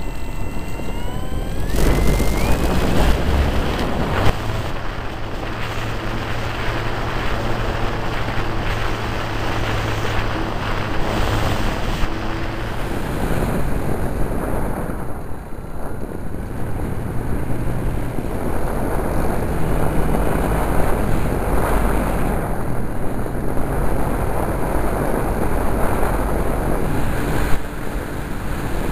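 Model Spitfire's motor and propeller heard from an onboard camera, spooling up with a rising whine in the first couple of seconds, then running at speed through takeoff and flight under heavy wind rush on the microphone.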